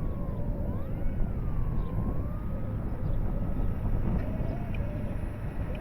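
Electric motor and propeller of an FMS Cessna 182 RC plane whining in flight, the pitch rising and falling twice with the throttle, then holding steady and fading about four seconds in, over a steady low rumble.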